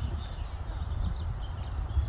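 Outdoor ambience: a low, uneven rumble on the microphone, with a few faint, short bird chirps in the background.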